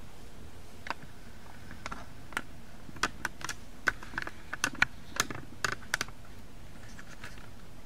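Camera handling noise: about a dozen irregular light clicks and taps, bunched between one and six seconds in, as the camera is picked up and turned around.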